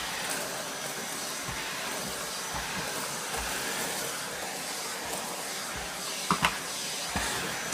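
Numatic Henry Turbo vacuum cleaner, fitted with a UDS motor, running steadily with a rushing hiss as it sucks up shredded paper, with a couple of sharp clicks about six seconds in.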